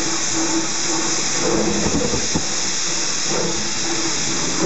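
Steam locomotive #70's cab: a loud, steady hiss of steam, with a lower tone pulsing in and out every second or so and one sharp click about two and a half seconds in.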